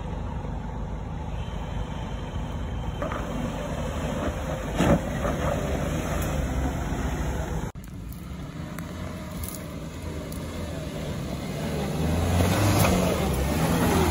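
Suzuki Jimny JB74's 1.5-litre four-cylinder engine running at low revs as the 4x4 crawls over a rough dirt track, with a sharp knock about five seconds in. The sound cuts abruptly a little before halfway, and the engine grows louder near the end.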